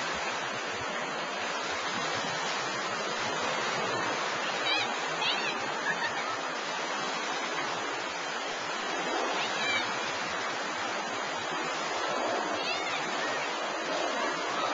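Steady wash and lapping of water across a wave pool, with a few brief high-pitched calls from somewhere around the pool.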